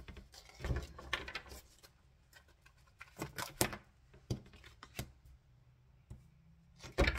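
Tarot cards handled over a wooden table: a scattering of short, sharp taps and flicks as cards are drawn from the deck and one is laid down, the sharpest tap near the end.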